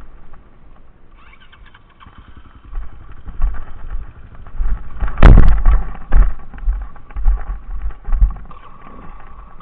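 Enduro motorcycle engine running on a rough, steep track, with repeated low thumps and knocks. One loud thud about five seconds in.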